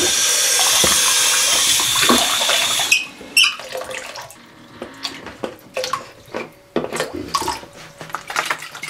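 Restroom sink faucet running hard, its water pouring into a plastic jug, then shut off abruptly about three seconds in. After that come scattered light knocks and clatter as the plastic jug is handled at the sink.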